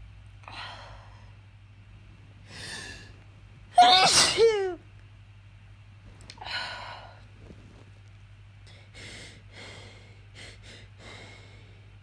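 A person sneezing: one loud sneeze with a falling voiced pitch about four seconds in, after two softer sharp breaths in. A shorter breathy burst follows, then several faint breaths.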